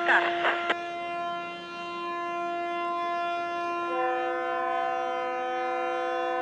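Ship horns holding steady tones together as a chord, with a second, higher horn chord joining about four seconds in. A brief wavering sound cuts across at the very start.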